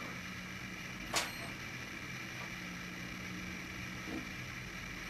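A single sharp click about a second in, from handling the Esky Dauphin coaxial RC helicopter before its rotors start, over a faint steady low hum.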